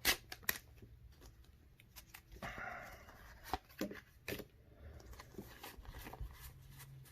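Faint rustling and light clicks of a foil Pokémon booster pack and its trading cards being handled, with a short soft rustle about two and a half seconds in.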